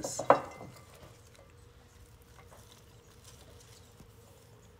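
Hands laying sliced onion rings in a ceramic baking dish: one sharp knock against the dish about a third of a second in, then faint soft taps, under a faint steady hum.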